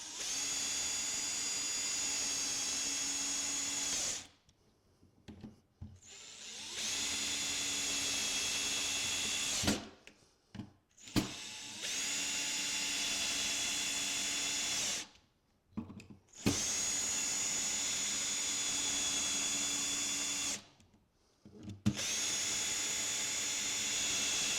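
Electric drill-driver driving screws home to fix a rim lock to a door: five runs of a steady whine, each a few seconds long, with short pauses and a few clicks between them.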